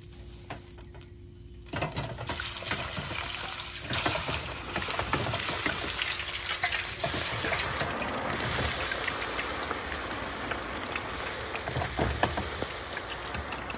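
Raw hand-cut potato fries going into the hot oil of an electric deep fryer in a wire basket. The oil starts to sizzle and bubble hard about two seconds in and keeps on steadily, with a few light clicks as more fries are dropped in and the basket is handled.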